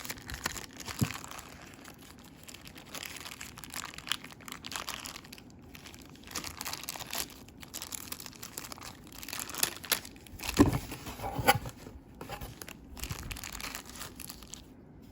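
Battery packaging crinkling and rustling as it is handled and pulled open, with a few sharper knocks, the loudest about ten and a half seconds in.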